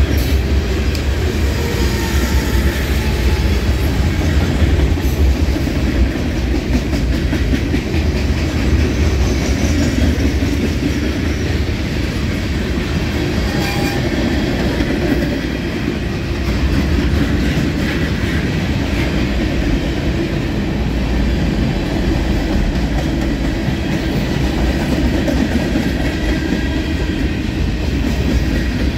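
Freight cars of a long mixed freight train rolling past at close range: a steady, loud rumble with faint repeated clicking from the wheels.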